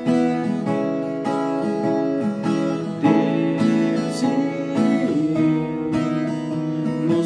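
Viola caipira, the ten-string Brazilian folk guitar with paired strings, strummed in a rhythm accompaniment, its chords changing several times.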